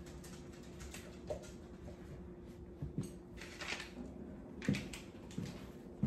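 Handling noises as a small dog is dressed in a fabric party outfit: cloth rustling and a few soft knocks against the counter, over a steady low hum.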